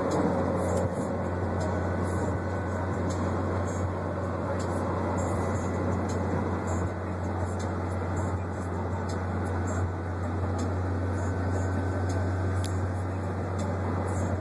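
Steady low drone of car noise heard inside the cabin.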